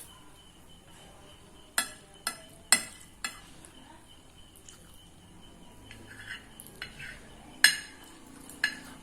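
Cutlery clinking against a plate while noodles are scooped up. There are four sharp clinks in quick succession about two seconds in, then two more near the end, the first of those the loudest.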